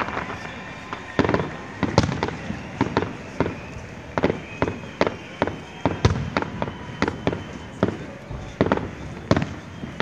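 Fireworks display: aerial shells bursting in an irregular series of sharp bangs, about two a second.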